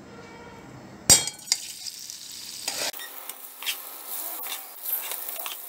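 Spice-marinated paneer cubes going into hot oil in a kadai and frying: a sharp knock about a second in, then steady sizzling with scattered crackles.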